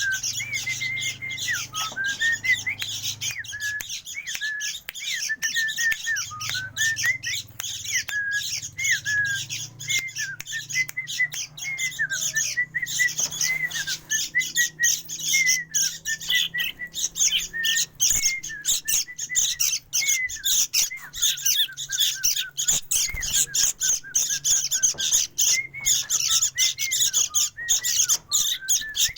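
Continuous rapid bird chattering: a dense stream of short chirps and squawky notes, many a second, with a recurring whistled note, played as a bird-taming call. A faint steady low hum lies underneath.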